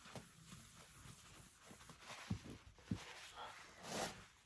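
A man breathing quietly, with a couple of soft taps, as he works up to a sneeze; near the end comes one short rush of breath that swells and fades in about half a second.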